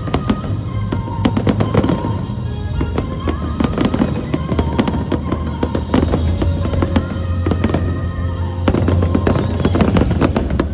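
Fireworks bursting and crackling in rapid, dense volleys over loud orchestral-style music with a heavy bass: the soundtrack of a pyromusical display, with the bangs timed to the music.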